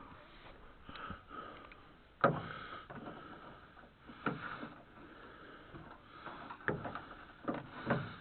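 A few sharp knocks and clunks spaced over several seconds, the loudest about two seconds in, with faint rustling between them.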